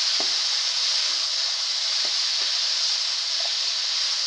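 Potatoes and peas sizzling in masala in a pan while being stirred with a spatula: a steady frying hiss with a few soft knocks of the spatula against the pan.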